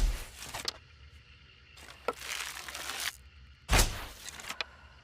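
Hunting bow being shot: two sharp, deep thumps, one at the start and one just under four seconds in, with a hissing rush between and after them.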